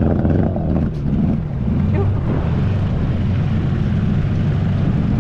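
Small two-stroke outboard motor on an inflatable dinghy running steadily under way, with a constant low hum and the hiss of water along the hull.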